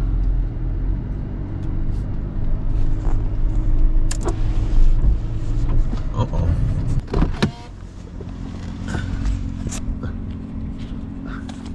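A car engine idling, heard from inside the cabin while it warms up on a cold morning, a steady low hum. Scattered clicks and knocks sound over it, and the hum drops in level about seven and a half seconds in.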